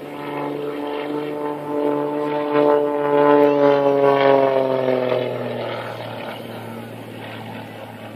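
Stunt plane's propeller engine passing overhead. It grows louder with its note bending, is loudest about halfway through, then drops in pitch and fades as the plane pulls away into a climb.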